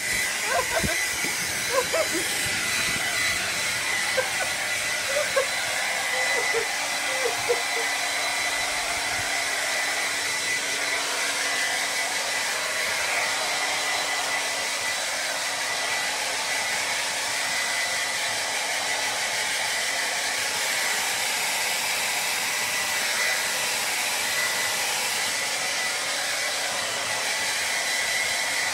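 Hair dryer blowing steadily: a constant rushing hiss with a thin high whine. A few short squeaks come through over the first several seconds.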